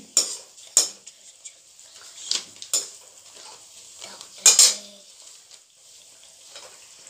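A metal spatula scrapes and clinks against a steel kadhai as a malpua frying in oil is turned, over a steady sizzle. There are about six strokes, and the loudest pair comes about four and a half seconds in.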